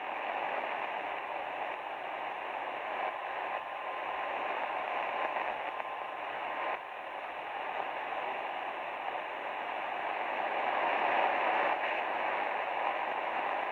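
Shortwave receiver hiss: band noise on the 20-metre amateur band in the DeepSDR 101 receiver's sideband audio, with no station coming through. The hiss swells slightly about ten seconds in.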